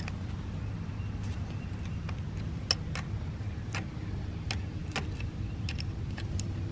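Open-end steel wrench clicking against the cable-clamp nut of a Shimano Altus rear derailleur as it is fitted on and worked to loosen the nut. There are about ten scattered light clicks over a steady low background rumble.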